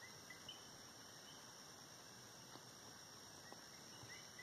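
Near silence: faint background hiss with a steady faint high tone and a few faint short chirps near the start and end, from coqui frogs calling.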